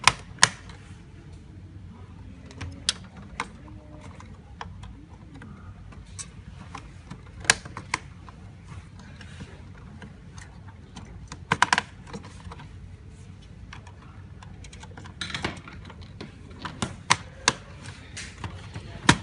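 Irregular sharp clicks and light knocks of desktop computer hardware being handled as the cleaned RAM modules are pushed back into their motherboard slots, with a few quick clusters of clicks.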